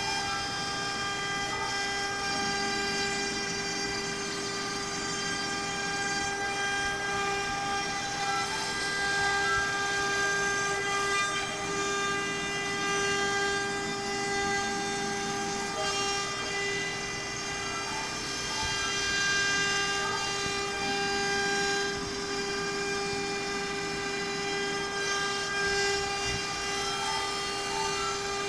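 CNC router spindle running at a steady whine as the bit cuts plywood, with cutting noise that swells and fades a little as the head travels. The router is an AccTek AKG1224.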